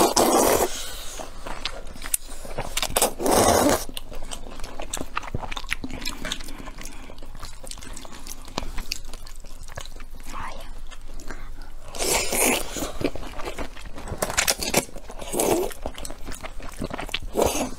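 Close-up eating sounds of a person eating long starch noodles in soup: several loud slurps, with wet chewing and small clicks between them.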